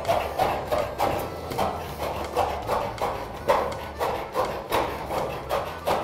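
Steel siding panel being cut along a marked line: an even, repeating crunch of metal being cut, about three strokes a second.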